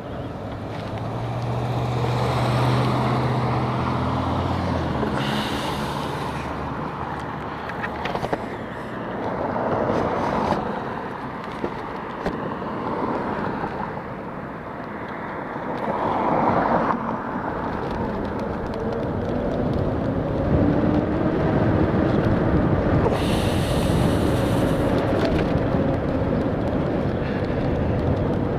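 Wind and road noise from riding a HappyRun F18 e-bike in traffic, with other vehicles passing. A low steady tone fades out about five seconds in, and a tone rises slowly through the second half.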